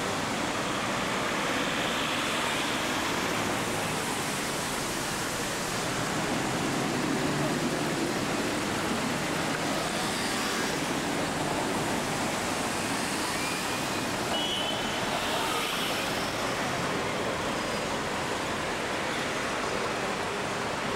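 City street traffic: cars, a van and a motor scooter passing close by, heard as a steady rush of road noise.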